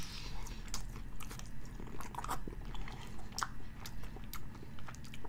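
A man biting into and chewing a mouthful of steak burger with bacon and onion rings: an irregular run of small crunching clicks.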